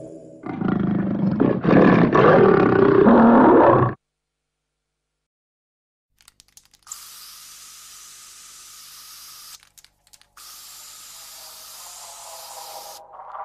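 Animated gorilla's loud roar lasting about three and a half seconds, then cutting off sharply. After a couple of seconds of silence a steady hiss comes in and runs on with a few brief dropouts.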